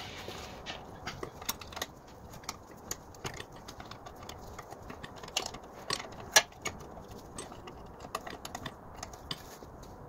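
Irregular light metallic clicks and ticks of a spanner working the lower bolt of a rear brake caliper loose, with one sharper click about six seconds in.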